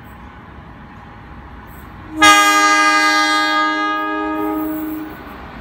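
Air horn of an approaching NSW 44 class diesel locomotive: one long blast of several tones together, starting suddenly about two seconds in and fading away after nearly three seconds. Before it, the faint low rumble of the approaching train.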